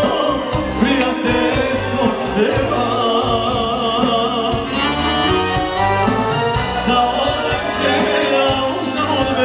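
Live band music: an instrumental passage of a Serbian folk song, with a lead melody wavering in vibrato over a bass line and a steady beat.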